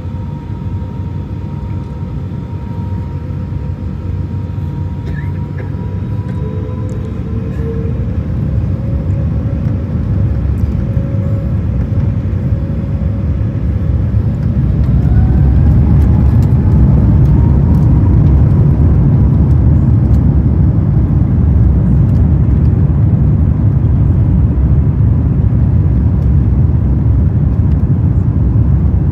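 Airbus A350's Rolls-Royce Trent XWB engines heard from inside the cabin: a steady whine over a rumble, then, about halfway through, the whine rises and the deep rumble grows much louder as the engines spool up to takeoff thrust. The rumble then holds steady and loud for the takeoff roll.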